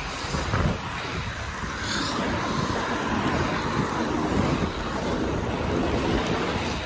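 Inline skate wheels rolling over asphalt, a steady rumbling roll, with wind noise on the microphone from the skater's speed.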